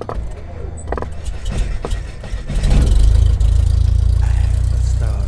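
Intro sound effect for an animated logo: several sharp cracking hits over a low rumble, then a deep, steady rumble that swells about two and a half seconds in and holds.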